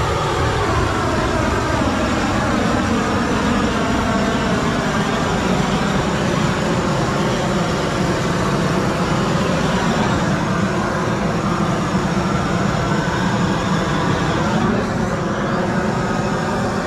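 Gas torch fed from a bottled-gas cylinder, its flame rushing loudly and steadily as it scorches timber; the pitch of the rush drifts slowly as the flame moves along the wood.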